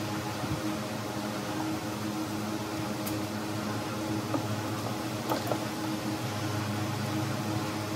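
A steady mechanical hum at an even pitch, with a few faint clicks or taps near the middle.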